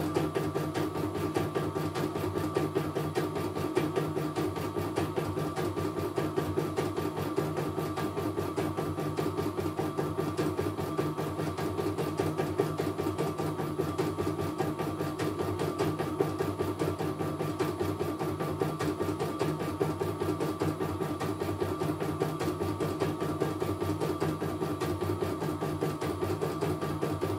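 CNY home embroidery machine stitching out a design: a fast, even needle clatter with a steady whine underneath.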